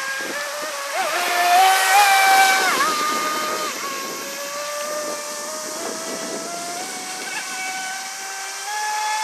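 Water-cooled brushless inrunner electric motor (3660SL, 3060kv) of a radio-controlled fibreglass V-hull speedboat whining as the boat runs at speed across the water. The pitch drops sharply about three seconds in, then climbs slowly as the boat speeds up again.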